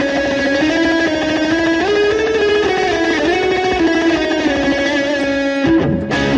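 Guitar strings ringing in held tones that slide up and down in pitch. Near the end the sound breaks off and turns into short, repeated plucked notes over a steady low note.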